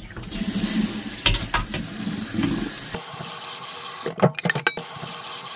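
Kitchen tap water pouring steadily into a stainless steel colander as soaked wakame seaweed is rinsed in the sink. A few light knocks come about four seconds in.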